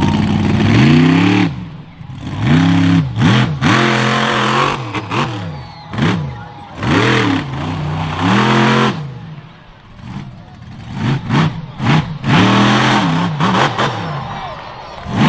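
Monster truck engine revving hard in repeated short bursts, its pitch climbing and dropping again and again as the throttle is blipped.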